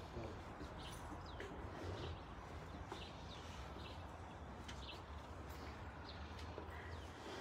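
Birds chirping, short high calls scattered through, over a quiet low steady rumble of outdoor background.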